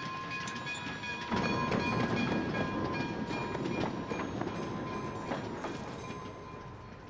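Train running: a rumbling, clattering rail noise with a steady high tone over it. It swells about a second in and fades toward the end.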